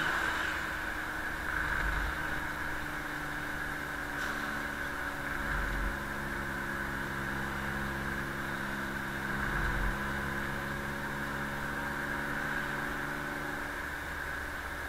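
Engine and road noise of a moving open-sided passenger truck, heard through an action camera's closed waterproof housing: a steady engine drone with three brief low thumps, about two, six and ten seconds in.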